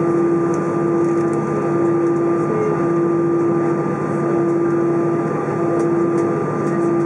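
Steady airliner cabin noise inside an Airbus A320 on the ground: engines and air conditioning running as an even hiss with a constant hum that does not change.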